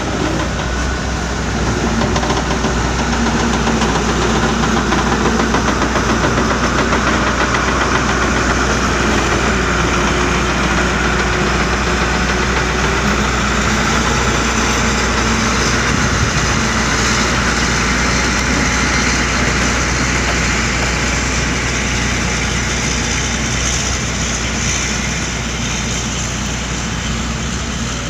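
Backhoe loader's diesel engine running steadily under work, its pitch drifting up and down slightly.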